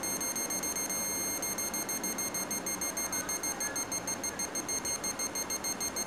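Electronic buzzing tone from a Drawdio oscillator whose output is set by an IR obstacle sensor, played back through the computer: a steady high tone over a rough buzz, pulsing rapidly in loudness. The tone is the sensor's signal that an object, a sponge, is in front of it.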